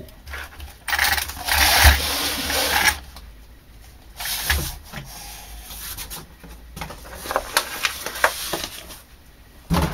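Cardboard being pulled and slid out from under an RC car chassis, scraping and rustling against a wooden board, followed by scattered clicks and knocks of handling.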